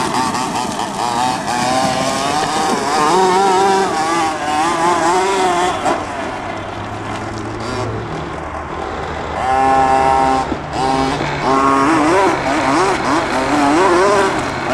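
Small two-stroke engine of a radio-controlled monster truck revving up and down again and again as it is driven. Its pitch rises and falls throughout, dips quieter in the middle, and is held high for about a second near the end.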